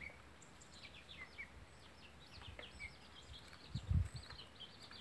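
Domestic chicks peeping: a busy run of short, high, downward-sliding peeps. A dull low thump comes about four seconds in.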